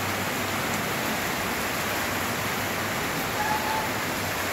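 Steady rain falling on a garden, an even, unbroken hiss.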